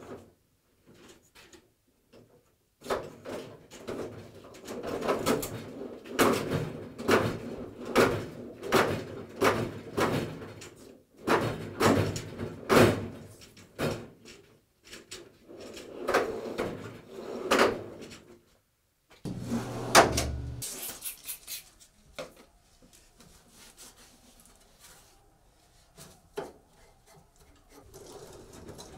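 Steel drawers of a Snap-on roll cabinet being slid in and out on their metal slides, a long run of clacks and rattles at about one or two a second. About twenty seconds in comes a single louder thump, then only a few scattered knocks.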